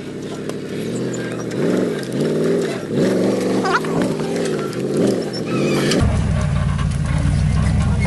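Full-size Chevy 4x4 pickup's engine revving up and down in quick repeated surges under load as the truck climbs a rock ledge. From about six seconds in it runs lower and steadier.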